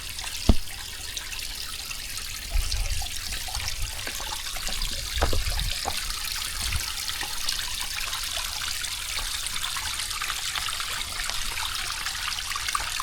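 Small creek waterfall splashing and trickling steadily, a continuous hiss of falling water, with a few dull low knocks in the first several seconds.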